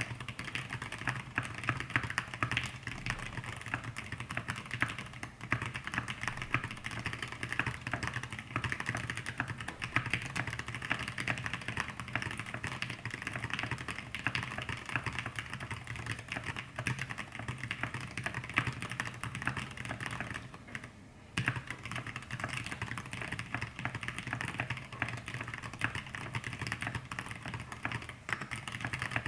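Continuous typing on an E6-V2 mechanical keyboard with an aluminium plate, thick-lubed Zealios 65g v2 tactile switches and thick KAT Alpha PBT keycaps: a steady run of key strokes that stops for a moment about twenty seconds in, then resumes.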